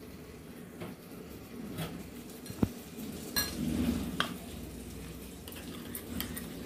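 A few separate clinks of a steel spoon against steel dishes as spiced yogurt is mixed in a small steel bowl, over a faint steady sizzle of eggplants shallow-frying in oil.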